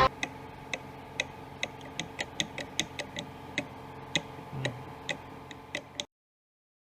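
Sharp, unevenly spaced clicks, about three a second, over a faint steady hum; everything cuts off abruptly about six seconds in.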